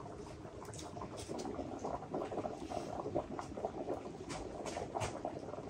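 Large aluminium pot of water at a hard boil, bubbling and crackling steadily, with scattered small clicks and cracks as roasted chestnut shells are peeled by hand.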